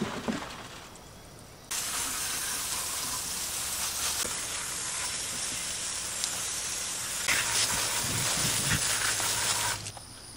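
Water hissing from a garden hose spray nozzle onto squash lying on a mesh-screen washing table, switching on about two seconds in and cutting off abruptly near the end. At the very start, a short clatter as the squash tip out of a plastic tub onto the table.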